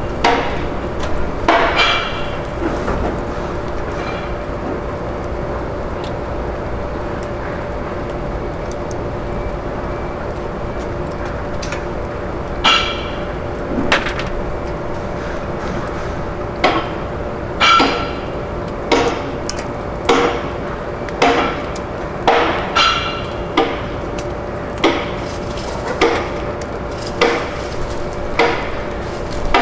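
Sharp metallic clanks with a short ringing tail, a few scattered at first and then about once a second in the second half, over a steady two-note hum.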